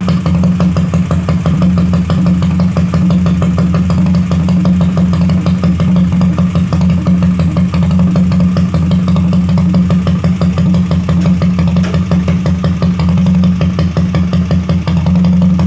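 Skygo 150 motorcycle engine idling steadily at a loud, even level, its rapid firing pulses coming through as a fast regular beat with no revving.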